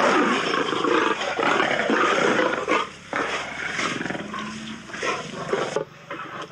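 Two male lions fighting, roaring in rough bursts. The bursts are loudest in the first three seconds, break off briefly, and come back quieter.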